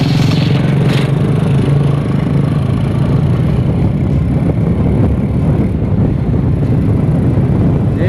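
Motorcycle engine running steadily while riding along a road.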